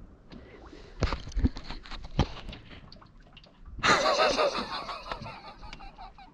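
A few dull knocks, then a man bursts into loud laughter about four seconds in, laughing for a couple of seconds.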